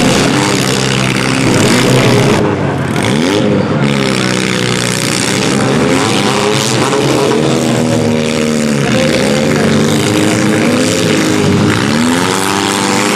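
Engines of several small demolition derby cars running hard in the mud, their pitch climbing and dropping over and over as the cars rev, accelerate and back off.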